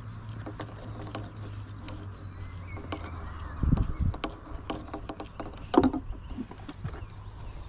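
Irregular clicks and knocks of a landing net being handled and its head twisted on the handle, with a dull thump about four seconds in and a sharper knock near six seconds. Birds chirp faintly in the background.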